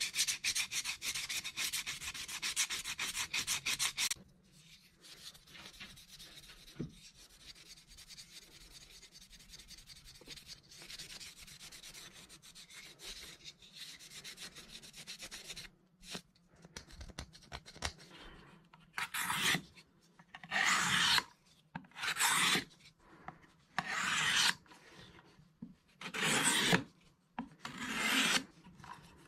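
A Case XX Sod Buster pocketknife being scrubbed by hand to clean off rust: a dense run of quick rubbing strokes for the first four seconds, then quieter rubbing. In the second half, about six separate, louder strokes of the blade drawn across a guided sharpener's plate, reshaping the broken tip and putting on a new edge.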